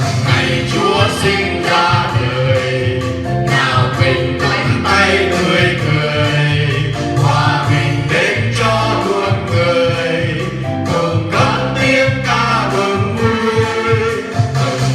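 A choir singing a Christmas song over instrumental accompaniment with a steady beat.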